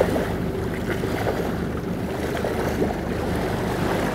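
Boat engine running steadily under the rush and splash of water, with a marlin held by the bill and towed alongside the hull.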